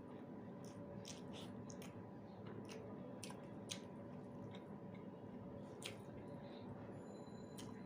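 Faint sounds of eating rice with potato dal and fried egg: soft squishing and chewing with scattered small clicks, over a steady background hum.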